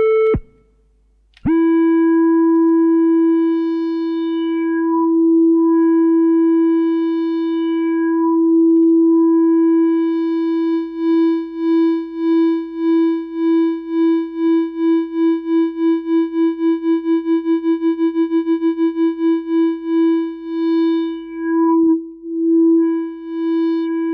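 Electronic synthesizer tone played from a handheld controller: a steady pitched tone with overtones that cuts out about half a second in and comes back a second later. From about ten seconds in it takes on a tremolo that pulses faster and faster, then slows again near the end.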